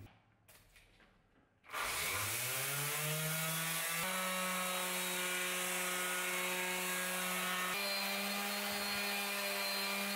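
Metabo random orbital sander switched on, its motor winding up to speed over about two seconds, then running steadily as it sands a steel axe head. Its pitch steps up slightly near the end.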